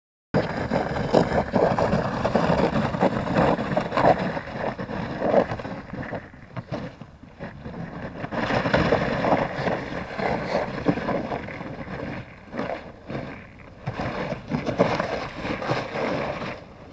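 Thin sheet ice cracking and crunching as a small motorboat breaks a channel through it, with the boat's motor running underneath. A dense crackle of many small snaps, loudest in the first few seconds and swelling again twice later.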